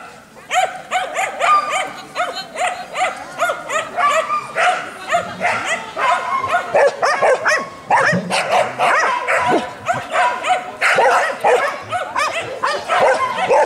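A dog barking rapidly and almost without pause, several short barks a second.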